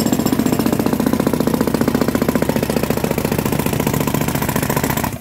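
Handheld jackhammer breaking up the old road surface, hammering in a fast, even, continuous stream of strokes.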